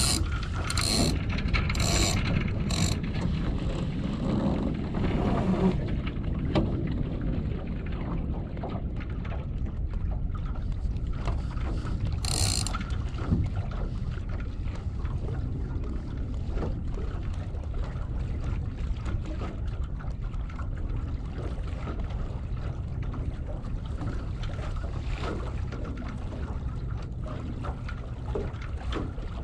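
Water running along the hull of a small sailing dinghy under way, with wind noise on the microphone, steady throughout. A few short rattling clicks come in the first three seconds and one more about twelve seconds in.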